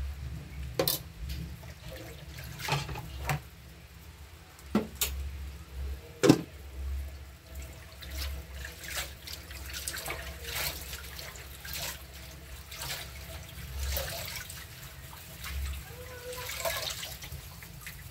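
Saucepan of fish broth with tomato, onion and ginger simmering on an electric coil stove, bubbling with scattered sharp pops, the loudest about six seconds in. A low hum runs underneath.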